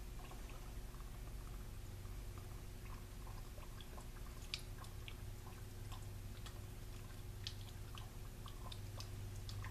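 Faint wet squishing and small clicks of liquid fuel being squeezed from a plastic nozzle bottle onto the coiled rope wick of a homemade tin-can rope stove, over a steady low hum.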